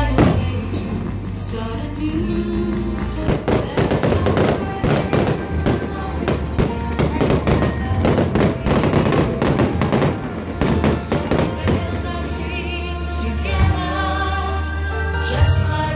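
Fireworks going off in a rapid, dense string of bangs and crackles, thickest through the middle, over loud music that plays throughout.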